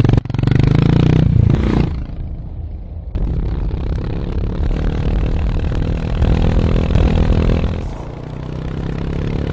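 Harley-Davidson X440's single-cylinder motorcycle engine and exhaust running on the move, its note rising and falling with the throttle. It drops away about two seconds in and comes back a second later.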